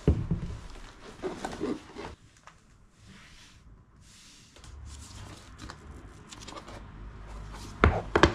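Shopping being unpacked onto a tile floor: a glass sauce bottle set down with a sharp knock at the start, then rustling of a cloth tote bag and handling. Near the end come two sharp knocks as a wooden cutlery container is put down on the floor.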